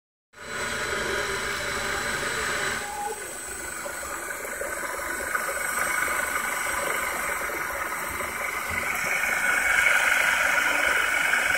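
Homemade electric jet drive, an electric motor spinning an impeller inside its housing, running out of water with a steady jet-like rushing whine that gets louder about nine seconds in.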